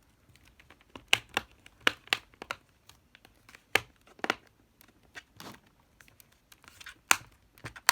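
Irregular sharp plastic clicks and snaps, about a dozen, as the laptop's display bezel is pressed around its edge and its clips seat into the screen lid.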